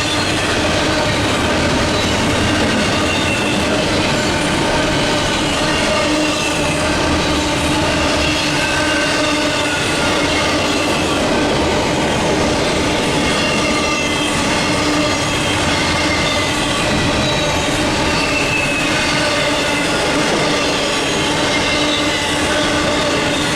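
Intermodal freight train cars rolling past: a steady, loud rumble of steel wheels on rail, with thin squealing wheel tones that drift slowly up and down in pitch.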